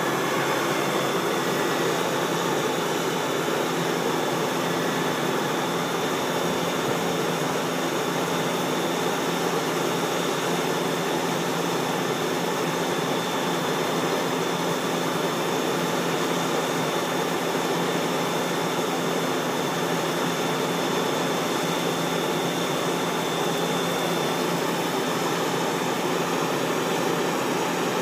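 Gleaner combine running steadily under load while its unloading auger empties wheat into a grain truck: an even machinery noise with a faint high whine through most of it.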